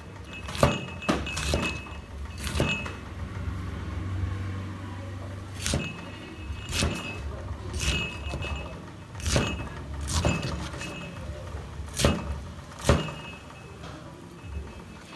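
Irregular knocks and clinks of kitchen utensils against cookware, about fifteen in all, several with a short metallic ring, over a steady low hum.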